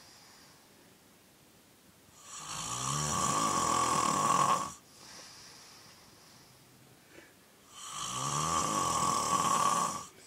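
A man snoring: two long, loud snores about five seconds apart, each lasting over two seconds, with quieter breathing between them.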